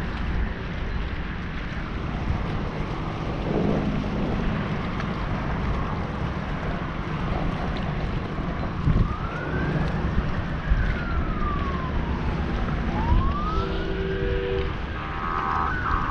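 Wind buffeting the microphone, with an emergency-vehicle siren wailing in the distance from about nine seconds in, its pitch rising and falling slowly.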